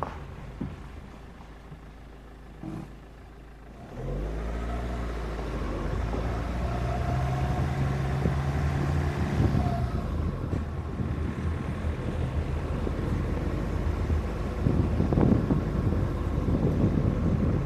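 Suzuki Grand Vitara SUV driving on a gravel road, heard from a roof-mounted camera. The engine is quiet for the first few seconds, revs up as the car accelerates about four seconds in, then runs steadily under load, with tyre noise on the gravel.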